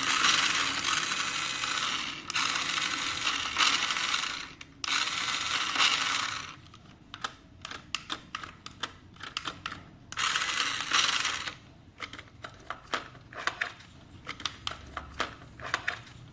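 Remote-control toy car's small electric motor and plastic gearbox running in short bursts of a couple of seconds, four times, with light plastic clicks and rattles between the runs.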